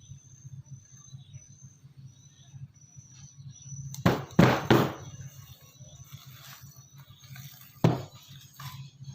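Kitchen clatter: three quick sharp knocks about four seconds in and another near the end, over a low steady hum.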